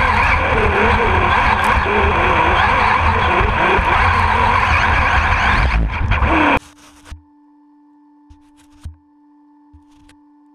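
Onboard sound of an HPI Blitz RC car driving fast over a wet dirt track: a motor whine rising and falling over a heavy low rumble and rattle from the chassis and camera mount. About two-thirds of the way in it cuts off suddenly, leaving a faint steady tone and a few light knocks.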